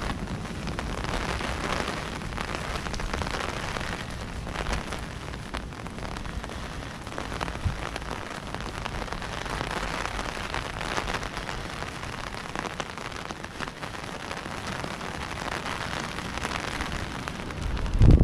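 Pouring rain falling steadily: a dense hiss of drops with fine ticks all through. A brief low thump comes right at the end.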